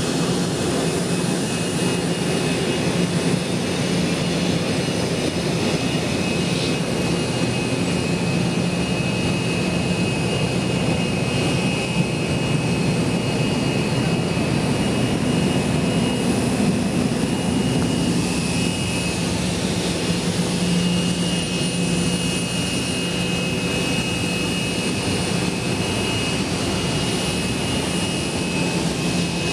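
Steady jet turbine noise: a constant high whistling whine over a low hum, holding level throughout.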